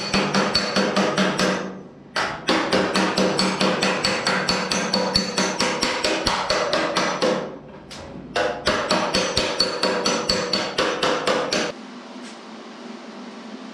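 Rapid hammer blows on sheet steel, about four a second, ringing, in three runs with short pauses between. The hammering stops suddenly near the end and gives way to a quieter steady hum.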